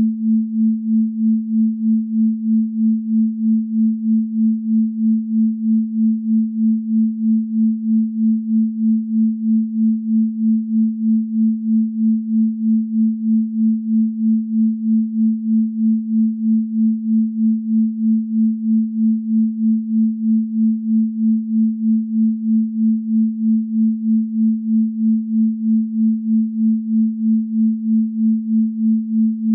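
A pure synthesized sine tone at 221.23 Hz, the 'Venus frequency', held steady. Its loudness pulses evenly about twice a second.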